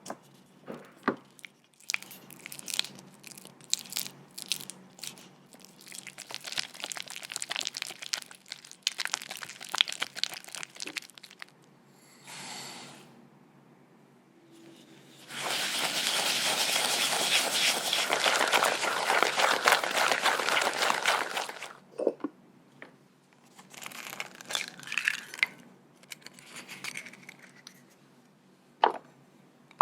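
Baking preparation sounds: crinkling, tearing and tapping of ingredients and utensils, then a dense six-second run of rapid scratchy rubbing a little past the middle, and scattered taps near the end.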